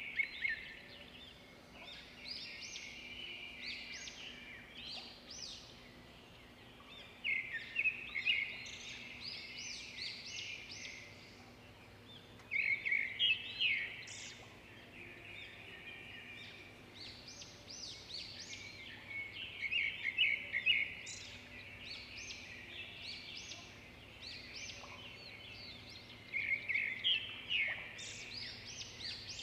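Small birds chirping in quick clusters of high notes that come back every several seconds.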